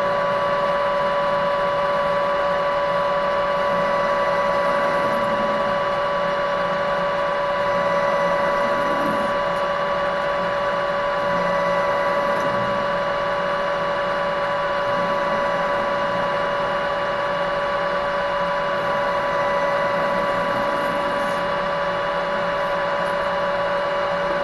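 A metal lathe with a geared headstock running at a steady speed, its gears giving a steady whine, while the tool takes a facing cut across the end of a steel part.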